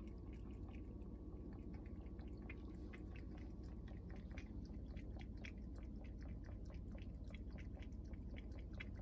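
Domestic cat lapping water from a bowl: a fast, even run of soft wet clicks, about three or four a second, over a low steady hum.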